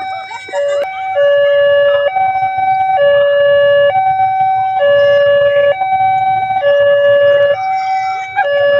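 Railway level-crossing warning siren at a manually operated crossing gate, alternating between a low and a higher tone and switching about once a second.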